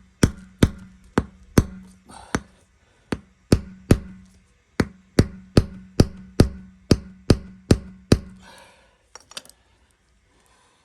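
A hammer striking the handle of a tire-plug insertion tool to drive it into a truck tire's puncture, which runs through a steel belt and resists the tool. There are about eighteen sharp blows, roughly two a second, each followed by a low ring, and they stop about eight seconds in.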